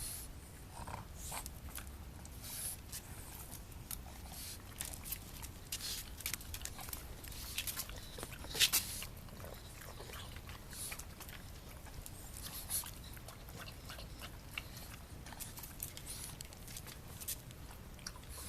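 A black pug puppy and a Shiba Inu puppy play-wrestling: many short, irregular scuffling noises from the dogs, the loudest a little before halfway through.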